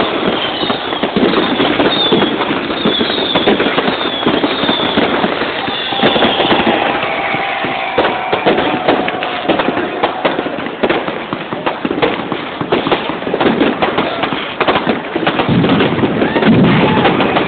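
New Year's fireworks and firecrackers going off in a dense, irregular barrage of bangs and crackles, with short high whistles in the first few seconds.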